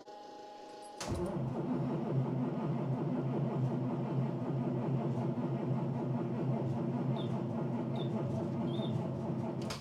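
Starter cranking the school bus's cold-soaked diesel engine at about −30 °C. It starts suddenly about a second in, grinds steadily for about nine seconds without the engine catching, then cuts off: a cold-weather no-start.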